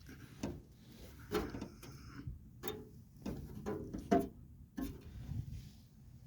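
Irregular knocks and scuffs, about one or two a second, some with a short ringing note, in a small room.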